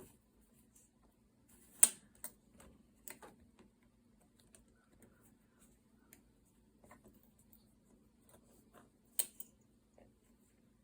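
Scattered light clicks and taps of loops and a weaving hook being worked over and under the warp on a potholder loom, with two sharper clicks about two seconds in and near the end.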